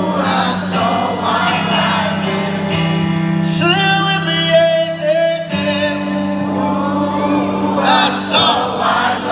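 Live rock band playing in a large arena: loud amplified guitars holding chords that change a couple of times, with singing over them.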